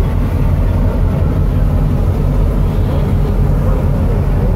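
Tugboat diesel engine running hard with a steady deep drone, mixed with the rush of water in the wake.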